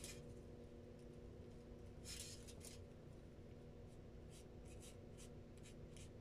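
Wet paintbrush stroking across drawing paper, faint. There is one longer stroke about two seconds in and several short strokes later on.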